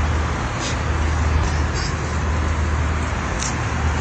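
Steady drone of an airliner cabin in flight, a low hum under an even rush of air and engine noise. A few brief faint scratchy sounds rise over it.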